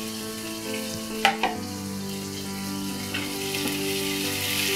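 Chopped onions and green chillies sizzling as they fry in hot oil in a nonstick kadai, stirred with a silicone spatula. Two light knocks come about a second and a quarter in, and the sizzle grows a little louder in the second half.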